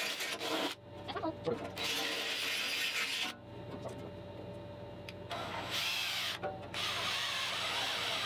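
Cordless drill boring holes through a thin steel cover panel in several bursts, with a pause of about two seconds in the middle.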